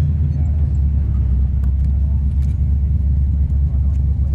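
Holden VH Commodore HDT Group 3's V8 engine and road noise heard from inside the cabin: a steady low drone at an even pace, with a few faint clicks.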